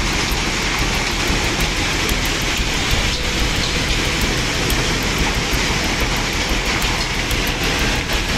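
Landslide debris flow of mud, boulders and water rushing down a slope, a steady loud rushing noise with no letup.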